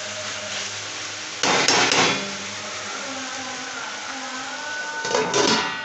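Metal spatula scraping and knocking against an iron kadai while stir-frying okra with onions and tomatoes, in two bouts of clanking, about a second and a half in and again about five seconds in.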